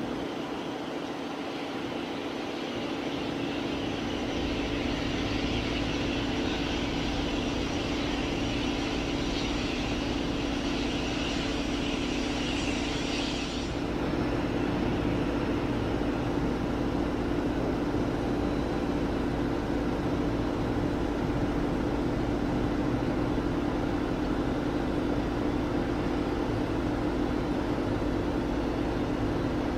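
Business jet turbofan engines running: a steady jet drone with a high hissing whine over it that stops abruptly about halfway through, leaving the steady low drone.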